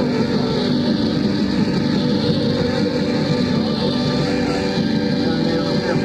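Lo-fi cassette recording of heavy rock: a dense, steady wall of band sound with no clear breaks.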